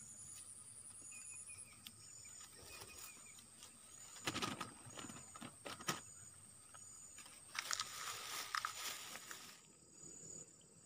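Insects calling: a steady high buzz with a short chirp repeating about every three-quarters of a second. Rustling and a few sharp clicks come in about four seconds in and again near eight seconds, and the buzz drops away near the end.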